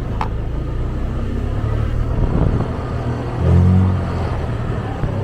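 Steady low rumble of a road vehicle under way. A louder engine drone swells and fades about three and a half seconds in.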